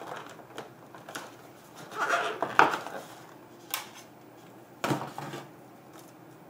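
Rigid plastic packaging tray and the SSD's plastic case being handled: rattling and clattering knocks as the drive is pried out of the tray and the tray is set aside. A cluster of clatters about two seconds in is the loudest, with single knocks near four and five seconds.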